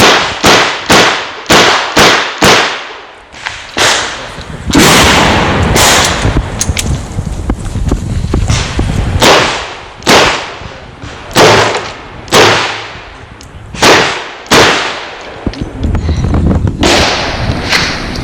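Revolver shots from a Chiappa Rhino 40DS loaded with .38 Special, fired one after another during a timed IDPA stage. A quick string of about six shots comes half a second apart. After a pause, more shots follow roughly a second apart, each loud and sharp with an echoing tail.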